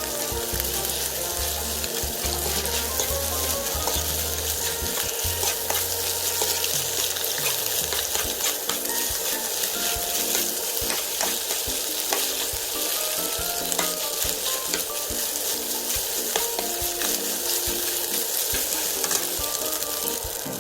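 Food stir-frying in a hot pan: a steady sizzle with a spatula scraping and tapping against the pan, under light background music with a melody.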